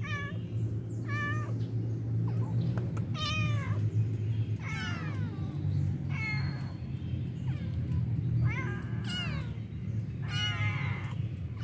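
Stray cats meowing repeatedly, begging for food: a call every second or so, several sliding down in pitch, over a steady low rumble.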